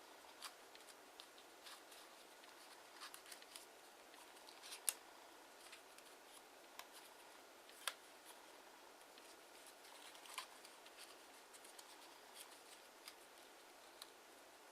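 Faint crinkling and clicking of kraft origami paper being folded and creased by hand, with a few sharper snaps, the loudest about five and eight seconds in.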